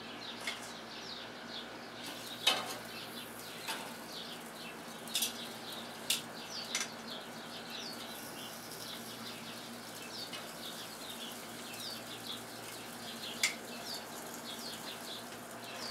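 Potato slices sizzling as they are laid on a hot gas grill grate, with a few sharp clicks of metal tongs against the grate and plate. Small birds chirp throughout.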